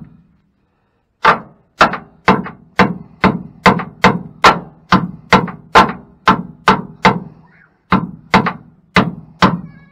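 Hammer blows on the eyelet of a new Bilstein 5100 rear shock absorber, driving it onto its mounting stud. After a second's pause come steady strikes at about two a second, each with a short ring, with a brief break near the end.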